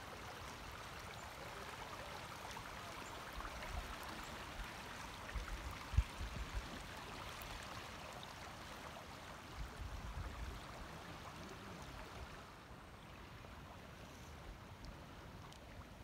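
Fast river current running over a shallow, rippled stretch: a steady rushing wash of water, a little softer for the last few seconds. A few low thumps come through around a third of the way in and again past halfway.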